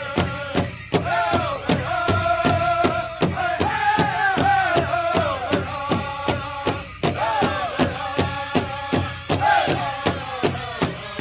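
Background music: a fast, steady drum beat with a wavering melody line over it.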